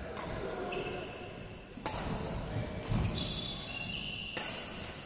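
Badminton racket strings striking a shuttlecock: two sharp hits, about two seconds in and again near the end, the second an overhead shot. Between them, short high squeaks of court shoes on the floor.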